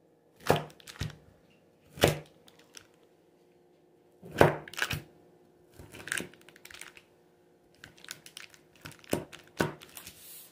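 Stainless steel bench scraper chopping down through a slab of homemade candy-corn Butterfinger candy, each cut ending in a sharp knock against the countertop, with parchment paper crinkling between cuts. About eight knocks, spaced irregularly.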